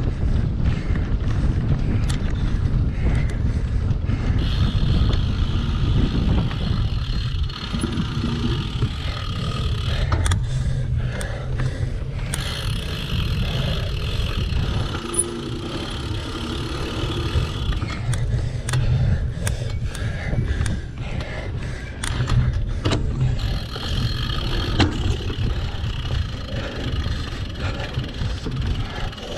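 Heavy wind rumble on the microphone as a single-speed cyclocross bike is ridden at race pace over rough ground, with frequent sharp knocks and rattles from the bike.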